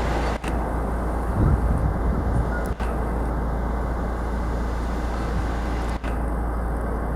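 Steady road and engine noise heard from inside a moving car, swelling into a louder low rumble about a second and a half in. The sound cuts out for an instant a few times.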